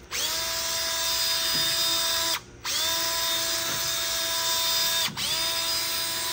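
Cordless drill driving a wire brush against the rusty strut bore of a steering knuckle, scouring out rust. It runs three times, each time spinning up to a steady whine, with a short stop about two and a half seconds in and a brief dip about five seconds in.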